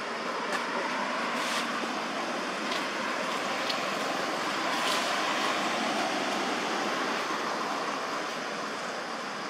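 Steady rushing noise of road traffic passing, with a few faint clicks.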